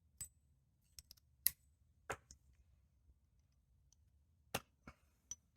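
Tweezers and small padlock parts being handled during disassembly: about ten light, sharp clicks and taps at irregular intervals.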